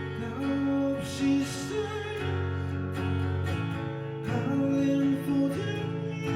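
A live solo song: guitar playing with a voice singing over it.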